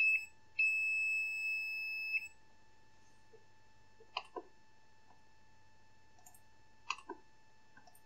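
Digital multimeter's continuity beeper sounding: one short beep, then a steady beep lasting about a second and a half, signalling continuity between the probe points on the repaired battery-connector joints. A few light clicks follow in pairs midway and near the end.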